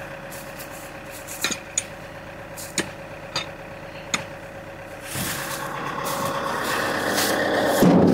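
An engine idles steadily throughout while ash log rounds are handled with a steel lifting tool. A few sharp knocks come in the first half. From about five seconds in there is a louder rolling, scraping noise of a round being moved, ending near the end in a heavy thud as it lands in a steel loading tray.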